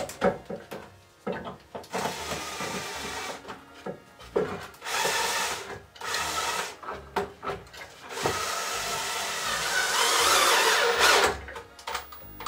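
Cordless drill running into a wooden frame in several bursts of one to two seconds, the last about three seconds long and the loudest, with clicks and knocks between.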